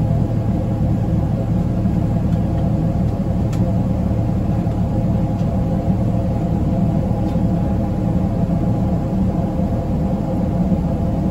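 Steady cabin noise inside a Boeing 777-300ER in flight after takeoff: the drone of its GE90 turbofan engines and the rush of air over the fuselage, a loud low rumble with a steady hum.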